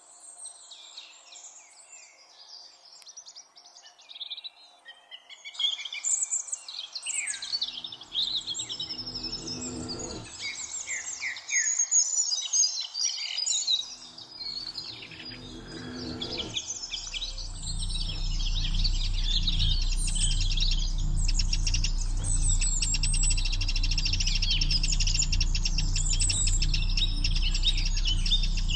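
Songbirds singing busy, varied high-pitched phrases. From about halfway a low, steady music bed comes in underneath and becomes the loudest sound.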